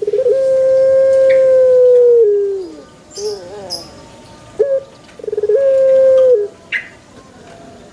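Puter pelung (domesticated Barbary dove) cooing: a rolling start that goes into a long, held note of about two seconds which dips at the end, then a wavering call, and another roll into a held note about a second long. Brief high chirps from another bird come in between.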